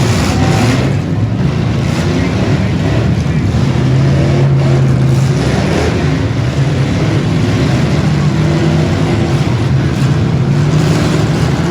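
Several stock V8 demolition derby cars' engines running and revving together, a loud steady drone that rises and falls in pitch.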